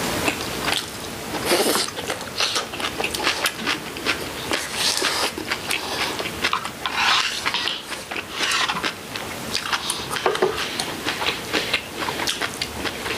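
Close-up sounds of two people eating: chewing and crunching of seasoned greens and rice, with chopsticks and spoons clicking and scraping against bowls and plates. The bites and clicks come at an irregular pace.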